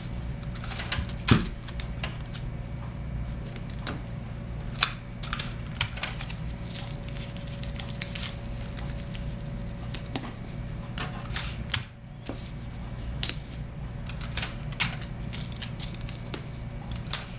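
Tissue paper being folded over a sheet of printer paper and taped down by hand: scattered light clicks, taps and crinkles of paper and tape on a desk, with a sharper snap about a second in. A steady low hum runs underneath.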